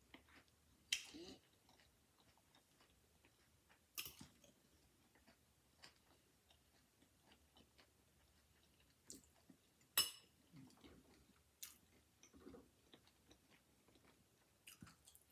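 Quiet chewing of a crunchy hard-shell taco, with a few sharp clicks: about a second in, at four seconds and around ten seconds.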